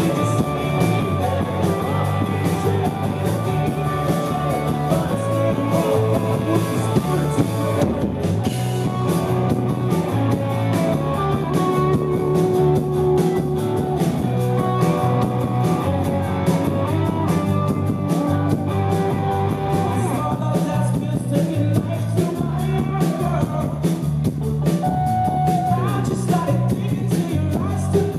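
Rock band playing live at a steady full level: electric guitars, bass and drums, with a singer's vocals over them.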